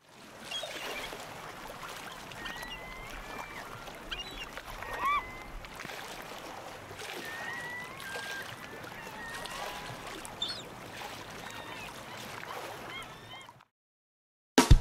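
Shore ambience: a steady wash of surf with water birds calling now and then in short, rising and falling cries. It fades in and cuts off shortly before the end.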